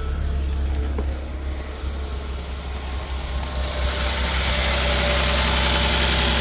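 Mercedes M276 V6 engine starting with both intake camshaft position sensors unplugged. It catches about a second in and then runs steadily, growing louder with a rising hiss toward the end. Because it starts and runs this way, the engine's computer is falling back on the cams' default positions.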